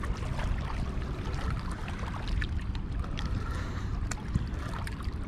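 Steady wind rumble on the microphone over water lapping at the shore, with a few light clicks.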